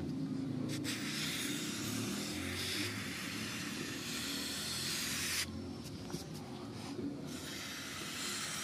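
Aerosol can of Motul C1 chain cleaner spraying onto a motorcycle chain: a long hiss starting about a second in, a break of about two seconds, then a second hiss near the end.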